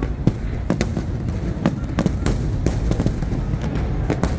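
Fireworks display bursting in a dense, irregular barrage: sharp bangs about three a second over a continuous low rumble.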